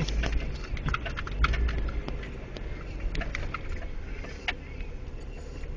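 Off-road vehicle engine running low and steady, with irregular clicks and knocks over it, several a second at times.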